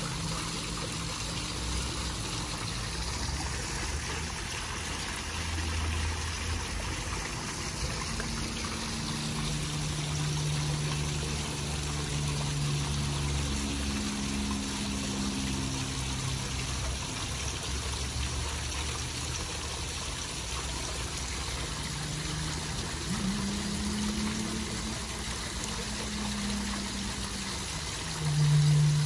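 Koi pond waterfall splashing steadily into the pond. Beneath it runs a low hum that changes pitch now and then, briefly louder near the end.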